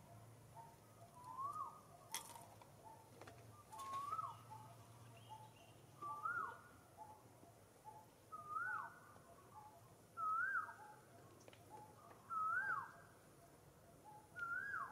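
A short whistled animal call that rises and then drops sharply, repeated seven times at steady intervals of about two seconds.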